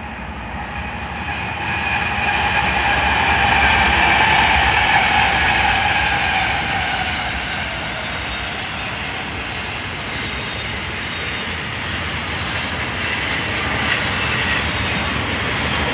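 Union Pacific double-stack container train passing at speed. The diesel locomotives grow louder to a peak a few seconds in, then the stack cars roll by in a steady rumble.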